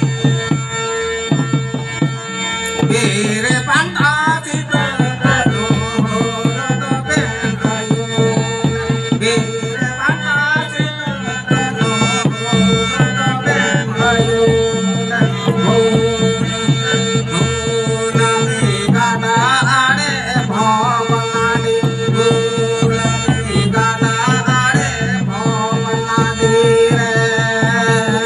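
Santali folk dance music: barrel-shaped hand drums beaten in a fast, dense rhythm, under a steady held drone note and a wavering melody line.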